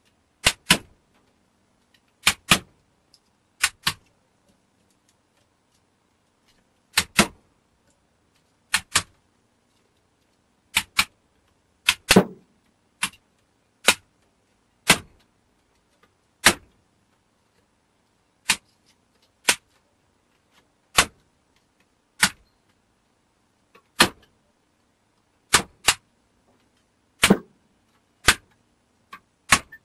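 Sharp metal-on-metal knocks, some two dozen at irregular intervals and often in quick pairs, as a screwdriver is driven against the rusted steel outer casing of a small transformer to knock the casing off.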